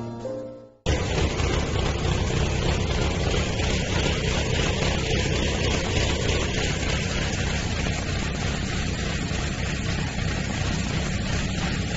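Pressure washer running steadily, a constant engine-like drone mixed with spray noise. It cuts in abruptly about a second in, after piano music fades out.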